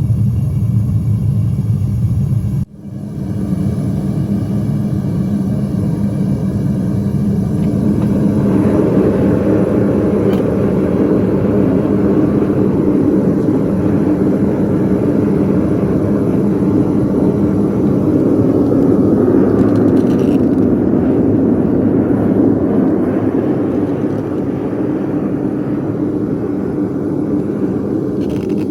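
Steady roar of a foundry furnace burner firing. It breaks off abruptly about two and a half seconds in, comes straight back, and grows fuller from about eight seconds in.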